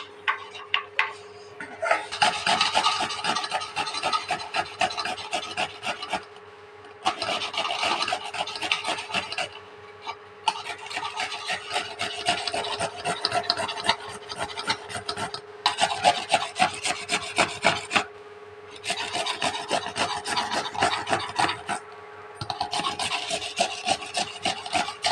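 Tomato being grated on a flat stainless-steel hand grater: quick back-and-forth scraping strokes in runs of a few seconds each, broken by short pauses.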